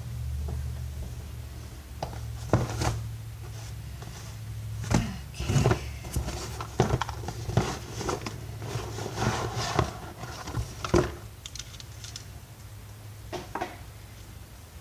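Handling clatter of tools and metal parts: a scattered series of sharp knocks and clicks as things are picked up, moved and set down, over a low steady hum.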